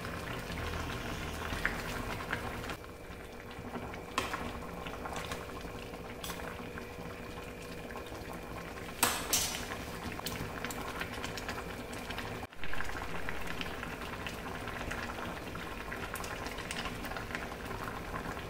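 Spinach curry (palak thongba) boiling hard in a stainless steel pot, a steady bubbling, with a couple of sharp clicks about four and nine seconds in.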